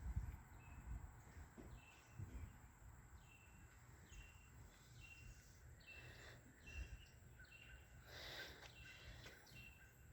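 Near silence with a faint bird call repeated steadily: a short high note, hooking down, about once every half second to second, over a low background rumble. A brief soft rustle comes near the end.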